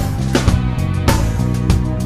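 Background music: sustained instrumental tones, guitar among them, over a steady drum beat.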